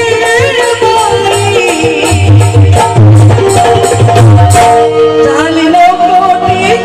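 Music from a Marathi devotional song (Bhim geet), with a repeating low drum beat under a held melody line and a wavering sung or played line.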